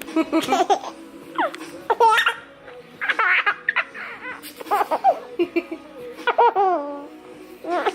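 Young child laughing in about six short bursts of giggles, a second or so apart, with faint music in the background.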